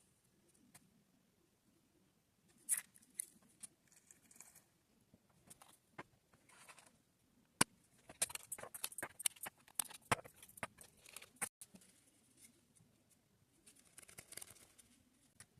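Small sharp plastic clicks and taps of diamond painting: a drill pen picking up resin drills and pressing them onto the sticky canvas, with brief rustles between. The clicks come scattered at first, then in a quick busy run in the middle, with a soft rustle near the end.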